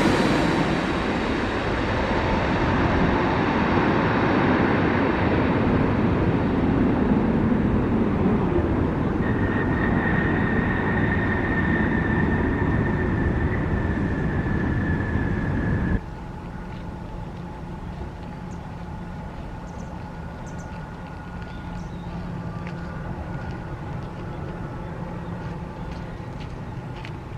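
Jet airliner engines roaring loudly just after the aircraft passes low overhead, fading a little and then holding steady with a high whine that comes in about a third of the way in. The sound cuts off abruptly about halfway through to a much quieter, steady distant jet engine hum with faint steady whining tones.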